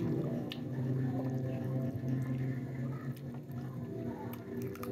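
Wet mouth sounds of someone chewing and sucking on adobo-braised chicken feet, with small smacks and clicks, over low, steady, droning tones.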